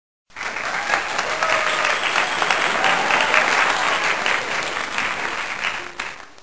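Crowd applauding, then cutting off abruptly near the end.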